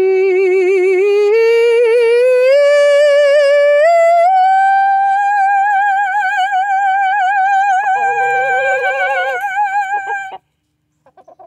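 A woman's sustained yodel: one long wavering note that steps up in pitch over the first few seconds, is held high with a strong vibrato, and cuts off suddenly about ten seconds in.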